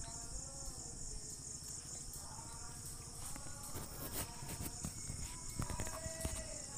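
Steady high-pitched insect drone, with a few faint metallic clicks as a wrench tightens the adjuster locknut on a steering gearbox.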